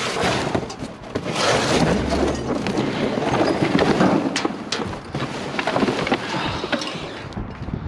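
Hands rummaging through a box of junk: steady rustling and clattering with many sharp knocks and clinks. A brief low rumble about two seconds in, like wind buffeting the microphone.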